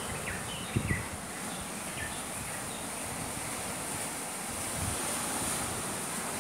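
Wind buffeting the microphone over a steady wash of sea surf, with a couple of low wind thumps about a second in.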